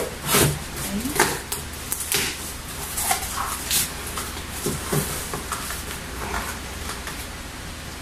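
Cardboard box being handled and opened: short scraping and rustling of cardboard flaps and tape, with a few creaks. The noises come in quick bursts, mostly in the first half, then ease off.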